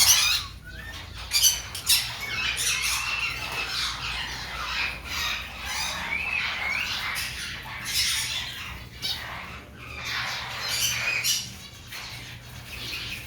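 Many caged pet birds squawking and chirping over one another, with sharp calls coming thick and fast.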